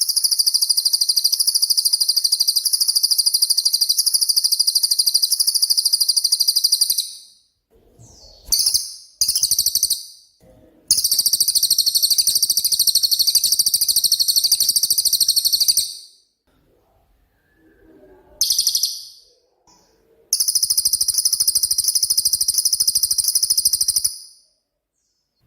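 Cililin bird singing very high, rapid trills. It gives three long trills of several seconds each, with short bursts of notes and brief pauses between them.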